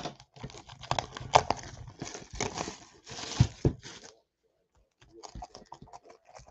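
Cardboard trading-card box being handled and slid across the table: about four seconds of scraping and rustling with a few knocks, then faint scattered clicks near the end.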